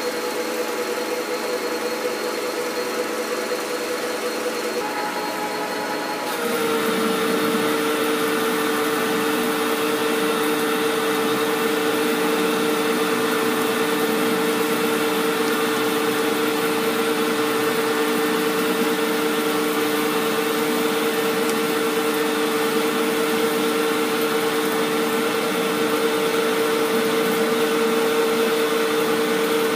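Metal lathe turning a chrome-plated steel bar, its carbide insert taking a roughing cut under flood coolant: a steady machine hum with two steady tones and the noise of the cut. The sound changes and grows louder about six seconds in, then holds steady.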